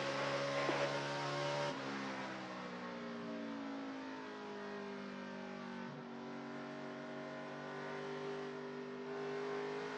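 NASCAR Camping World Truck Series race truck's V8 engine heard from onboard at racing speed. Its pitch drops suddenly about two seconds in as the driver lifts for the turn, sinks a little further, then holds fairly steady through the corner.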